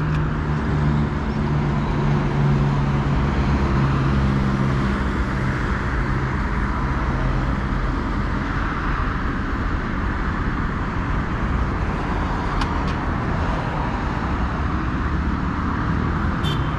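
Superbike engine pulling at a steady highway speed under a heavy, even rush of wind and road noise. Its note holds steady for the first five or six seconds, then sinks into the rushing noise.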